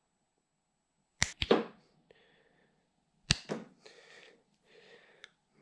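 Hands working a small wiring connector, crimped terminals and a rubber boot: two sharp clicks about two seconds apart, each followed by brief rustling, with faint handling noise after the second.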